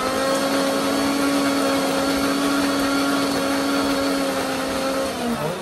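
Electric mixer grinder (mixie) running with a small stainless-steel jar, grinding ginger and garlic into a paste. It gives a steady motor hum with a whining tone, then slows and drops in pitch as it winds down near the end.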